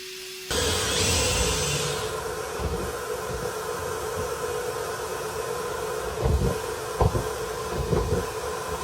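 Clothes dryer running: a steady rush of air with a hum, starting abruptly about half a second in, and a few irregular low thumps in the second half.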